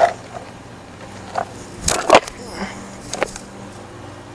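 Walmart skateboard knocking on concrete during a trick attempt: a few short sharp knocks of the tail pop and the deck and wheels landing, the loudest about two seconds in.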